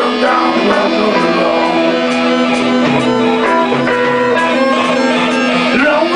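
Live band playing loud improvised rock, with guitar to the fore over a long held note.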